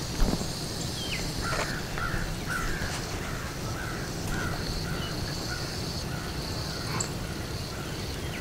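A bird calling a long series of short notes, about two or three a second, over a steady low outdoor background. A single sharp knock comes right at the start.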